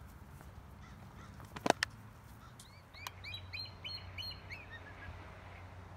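Two sharp knocks about a second and a half in, then a quick run of about eight short, high chirping bird calls lasting under two seconds.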